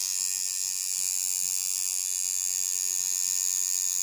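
Electric tattoo machine buzzing steadily with a high-pitched whine as it works on skin.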